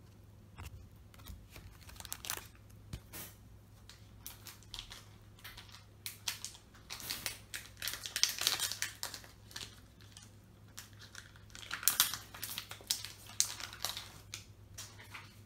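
Foil wrapper of a Naruto CCG booster pack crinkling and tearing as it is opened, in irregular bursts of rustling with small clicks, loudest about halfway through and again a few seconds later.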